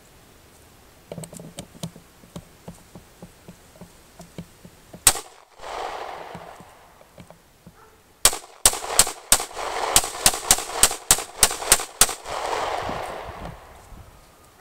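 Beretta PX4 Storm Subcompact pistol firing: a single shot about five seconds in, then a rapid string of about a dozen shots at roughly three a second, each followed by a trailing echo. Faint clicks come before the first shot.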